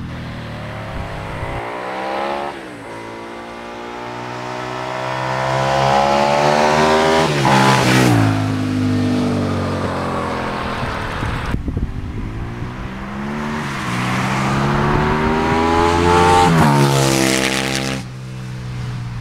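Suzuki SV650 V-twin with a MIVV Oval exhaust accelerating hard toward the microphone, its note climbing steadily, then dropping sharply as it passes about eight seconds in. After an abrupt cut, a second pass climbs and drops the same way near the end.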